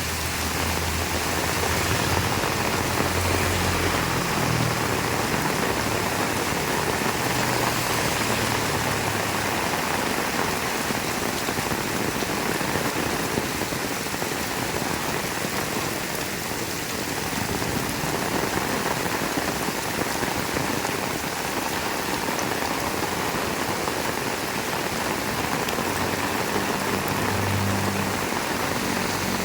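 Heavy rain falling steadily in an even hiss, with a faint low hum in the first several seconds and again near the end.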